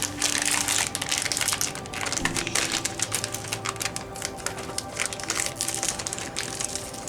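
Plastic snack bag of chocolate-coated potato chips crinkling and crackling as it is handled and opened, over steady background music.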